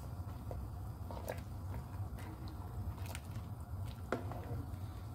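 Pork pieces being stirred in water in a pot with a spatula: wet squishing and scattered light clicks of the utensil against the pot, over a steady low hum.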